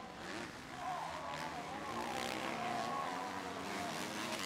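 Several MX2 250 cc four-stroke motocross bikes revving hard, their engine pitch rising and falling with throttle and gear changes.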